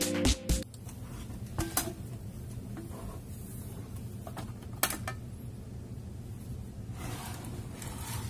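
Electronic music cutting off about half a second in, then handling sounds from a cassette deck's back panel being lifted off: a couple of sharp clicks and knocks and a short scrape near the end, over a steady low hum.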